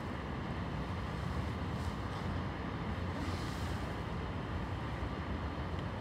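Steady low outdoor rumble of distant city and railway traffic, mixed with wind buffeting the microphone.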